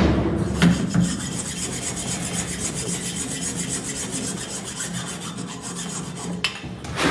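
Hacksaw blade sawing through the tip of a bull's horn in quick, regular back-and-forth strokes, a dry rasping sound, cutting the point off to blunt the horn.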